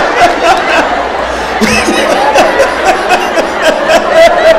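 People laughing and chuckling over voices, with a run of sharp clicks.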